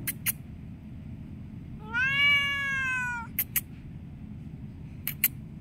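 A domestic cat gives one long meow about two seconds in, rising a little in pitch and then falling away. Pairs of short, sharp clicks come at the start, just after the meow and near the end.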